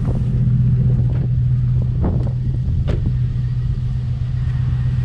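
2000 Chevy Tahoe's V8 idling with a bad misfire: a steady low engine drone, with a few sharp ticks about two and three seconds in.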